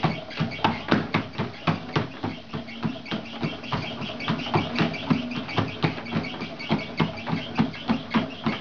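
Quick, even footfalls of a small child running on a moving treadmill belt, about three steps a second, over a faint steady hum from the treadmill.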